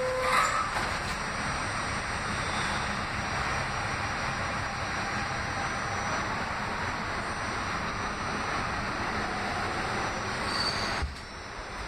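Inside an R68A New York subway car under way: steady rumble and rattle of wheels on the track, with a brief thin squeal about half a second in. The noise drops suddenly near the end.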